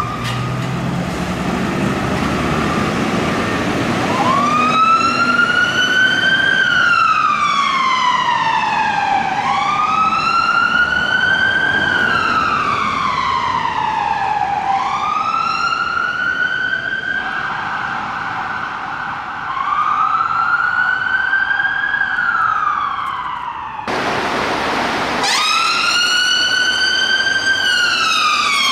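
Fire engine siren sounding a slow wail, the pitch rising and then falling in cycles about five seconds long. Before the siren starts about four seconds in, the truck's engine is heard pulling away. Near the end a short burst of noise is followed by a second vehicle's wail siren.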